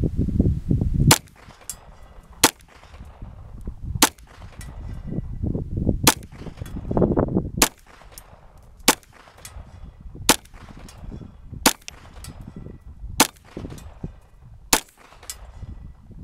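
Ruger Mark III .22 LR semi-automatic pistol fired about ten times at a steady pace, roughly one shot every second and a half, at a steel plate 100 yards away, with faint metallic clangs of hits on the steel. Bursts of low rumbling noise come between some of the shots.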